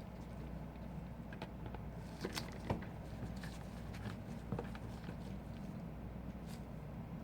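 Small metal tools clicking and tapping a few times against an iPhone 5 during disassembly, over a steady low hum. The loudest click comes about two and a half seconds in.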